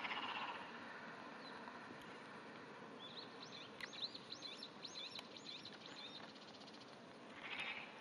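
Wrinkled frog (Glandirana rugosa) giving a short, faint pulsed croak at the start and again near the end. In between, a bird sings a quick run of high looping chirps, about four a second for some three seconds.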